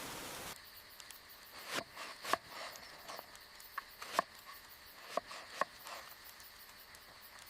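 Steady rain hiss that cuts off suddenly about half a second in, leaving quiet with a few scattered sharp taps.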